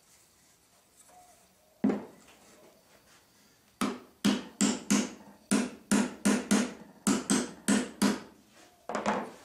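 A steel-headed hammer tapping wooden wedges into the slotted end of a tenon to lock a wedged joint. A fast run of about fifteen sharp strikes, two to three a second, is followed by two more near the end. A single knock comes about two seconds in.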